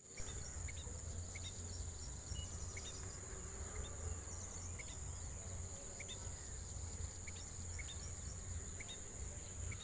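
Steady high-pitched insect drone, like crickets, with short faint bird chirps every second or so, over a low outdoor rumble.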